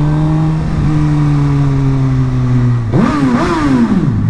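Suzuki GSX-R 1000 K7's inline-four engine running at a steady pitch under way, then about three seconds in the revs shoot up sharply and fall back, a short burst of throttle for a sound test.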